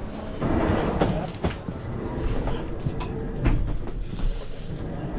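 Footsteps and scattered knocks of someone walking through the doorway and down the aisle of a railway chair-car coach, over a low steady rumble.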